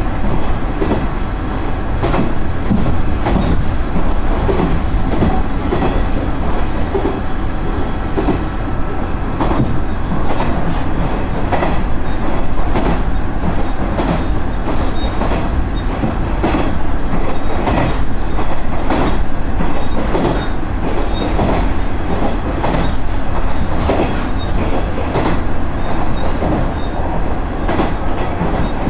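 Diesel railcar (JR KiHa 110 series) heard from inside the passenger cabin while running: a steady low rumble of engine and wheels, with frequent irregular clacks from the wheels on the track.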